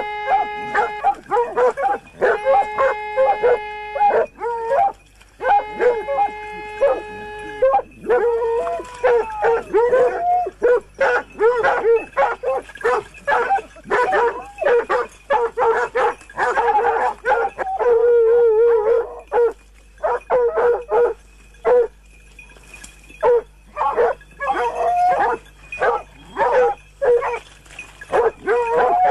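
Pack of hunting hounds baying and barking in rapid, overlapping barks and yelps at a wild boar held at bay. In the first eight seconds three long, steady notes of about two seconds each sound over the barking.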